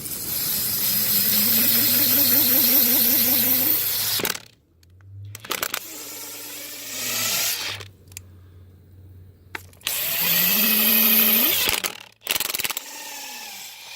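Impact gun driving a Counteract stud-cleaner socket over rusty beadlock studs, the motor whine rising under load with a harsh high scraping as the rust is cut off. There are two long runs, each followed by a shorter run that winds down, as the tool is run forward and then reversed on each stud.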